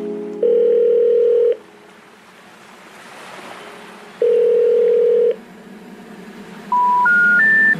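Telephone ringback tone, two long steady rings about three seconds apart, followed by three short beeps rising in pitch: the special information tone that signals the call could not be completed.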